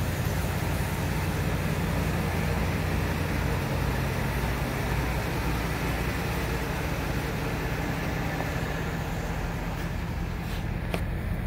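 The 5.4-litre V8 of a 2007 Ford F-150 idling steadily, with its sound mostly low-pitched.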